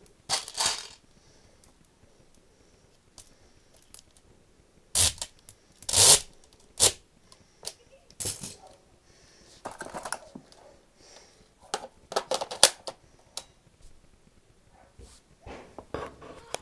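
Scattered clicks, knocks and rattles of hands handling airsoft gear: a cleaning rod, a speed loader tube and a plastic magazine, which is then fitted into an airsoft rifle.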